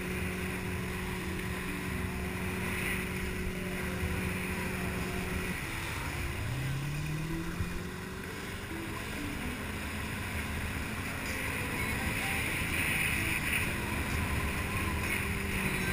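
Motorboat engine running at a steady pitch over rushing water and wind. About five seconds in it drops off, then climbs back up in pitch over the next two seconds as it speeds up again.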